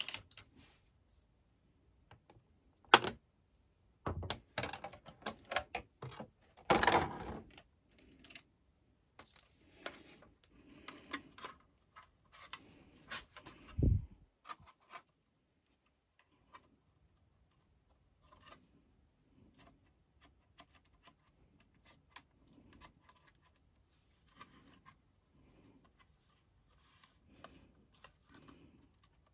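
Hands handling clear plastic packaging and a small plastic 1/24-scale RC truck: irregular clicks, taps and knocks, with a louder rustle about seven seconds in and a dull thump about halfway through.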